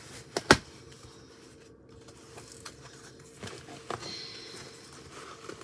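Scissors and packaging being handled: one sharp click about half a second in, then quieter scattered clicks and rustles.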